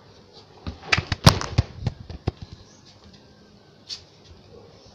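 A football being touched and bounced on a hard floor during ball-control skills: a quick run of knocks starting about a second in, then one more knock near the four-second mark.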